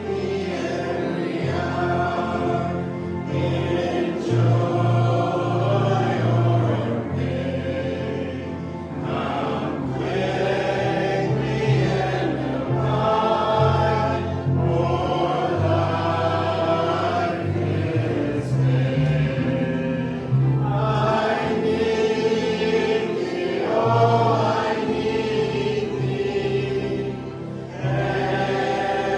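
Group of voices singing a gospel hymn together, with steady low accompanying notes underneath.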